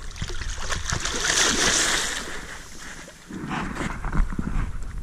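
Water splashing as a hooked pike thrashes at the surface next to an inflatable pontoon boat, loudest about one to two seconds in, followed by shorter splashes and a thump a little after four seconds.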